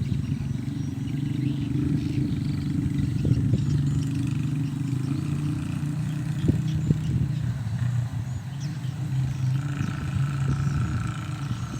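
Engine of a rice harvesting machine running steadily at a constant speed, with scattered short knocks and rattles over the drone.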